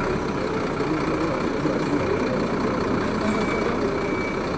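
Engine running steadily, with faint short beeps repeating from about three seconds in.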